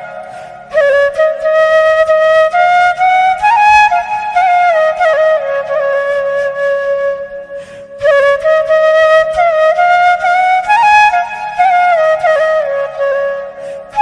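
Background music: a solo flute melody in long, sliding phrases, with a fresh phrase starting just before a second in and another about eight seconds in.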